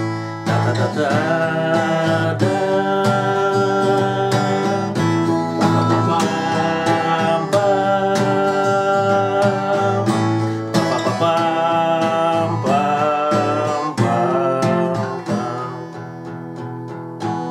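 Acoustic guitar playing the instrumental break of a song, with a wordless 'ta-ta-ta' melody sung over it.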